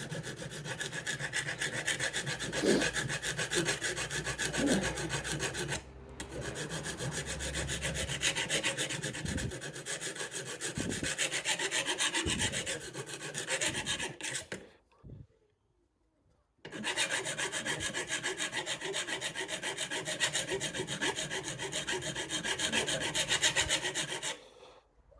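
Hand file rasping along the edge of a Ryobi 18-volt mower's blade in steady back-and-forth strokes, sharpening the cutting edge. The filing stops briefly about six seconds in, pauses for about two seconds a little past halfway, then resumes until just before the end.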